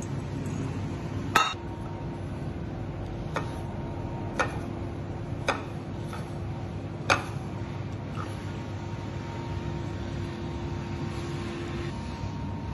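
Kitchenware clinking on a metal tray while sesame seeds are poured and a roll is coated: five sharp clinks, the loudest about a second and a half in, over a steady low hum.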